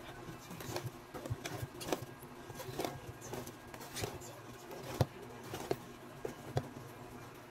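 Wire balloon whisk beating thick cake batter in a stainless steel bowl: irregular clicks and scrapes of the wires against the bowl, with a few louder knocks.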